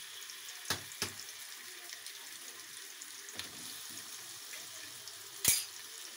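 Eggs frying in hot ghee in a metal pan: a steady sizzle, with a few sharp clicks and taps as a second egg goes in, the loudest near the end.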